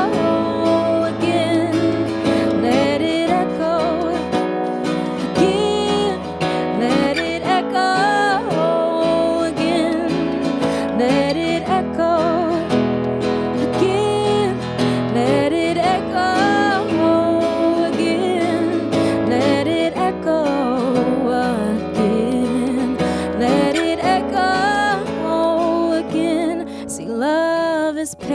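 A woman singing a song, her voice sliding and wavering with vibrato, over strummed acoustic guitar.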